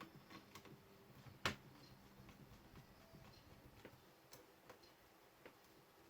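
Faint, irregular small clicks and ticks of laptop parts being handled and fitted as the motherboard is seated in the laptop's case, with one sharper click about a second and a half in.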